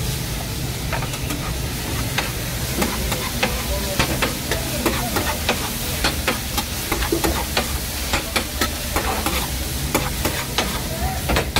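Metal spatula repeatedly clacking and scraping on a flat steel griddle as shredded chicken is tossed and chopped, over a steady sizzle. The clacks start about a second in and come a few times a second.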